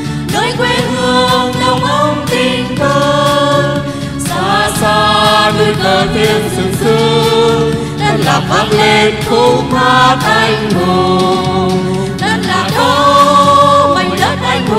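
A group of voices singing a Vietnamese song in harmony, with long held notes over musical accompaniment.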